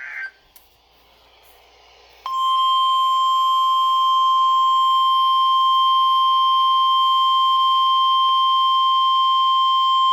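Emergency Alert System weather alert: a short data burst at the very start, then about two seconds later a single steady alarm tone near 1 kHz sounds loud and unbroken. The tone is the 1050 Hz NOAA Weather Radio warning alarm tone that comes before a warning message.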